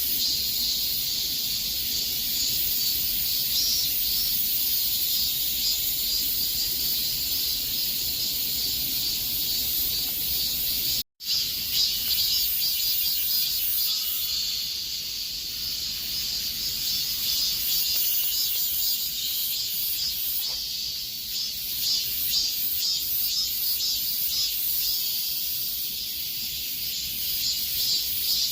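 Cicadas singing in a dense, steady high-pitched summer chorus. The sound drops out for a split second a little over a third of the way through.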